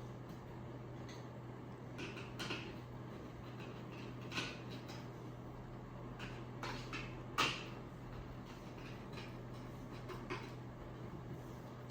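Scattered clicks and knocks of bed-platform parts being handled and fitted together during assembly, the sharpest about halfway through, over a steady low hum.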